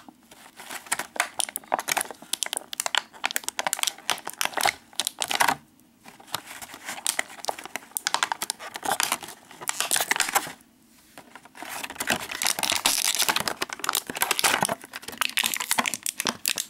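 Thin plastic blister packaging crinkling and crackling as it is handled and parts are pulled out of it, in bouts broken by two short pauses.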